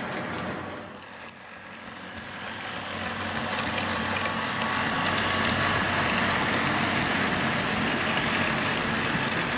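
HO-scale model freight train, headed by several diesel locomotives, running slowly past: a steady hum of motors and rumble of wheels on rail, growing louder over the first few seconds as it draws near, then holding steady.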